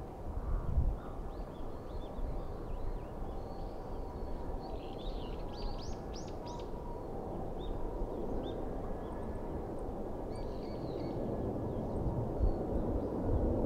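Distant, steady rumble of a Boeing 777-300's jet engines climbing away after takeoff, growing slightly louder near the end. Small birds chirp over it, a few quick high calls about a third of the way in and again later.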